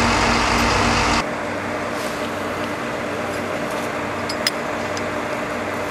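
A vehicle engine idling steadily. About a second in, the sound drops abruptly to a quieter, steady mechanical hum, with a few faint clicks.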